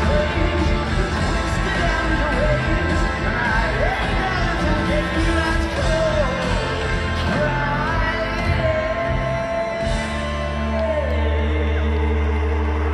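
Live rock band playing with a singer, amplified through a stadium PA and recorded from the crowd. About ten seconds in the busy playing stops and a low held chord is left ringing.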